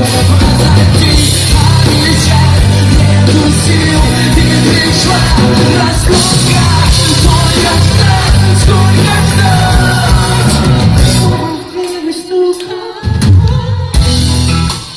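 Loud rock music from a band with a singing voice. About twelve seconds in, the bass and drums drop out briefly, leaving thinner sound, before the full band comes back near the end.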